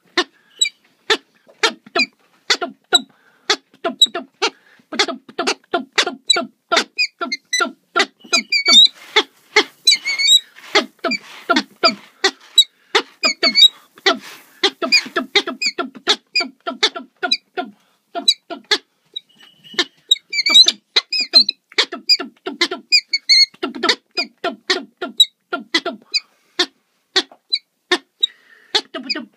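Male peregrine falcon calling in courtship display while bowing on a gravel scrape ledge: a continuous run of short, repeated calls, about two a second, with a few quicker, higher-pitched flurries.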